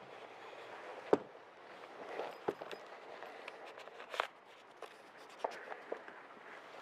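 Footsteps and scattered light knocks and clicks from people moving about and handling small objects in a room, with one sharper thump about a second in.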